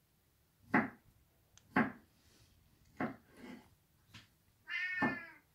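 A pet dog making a string of short whining calls, about five in all, the longest and most tuneful near the end: begging, in the owner's reading out of jealousy at the snake being fed.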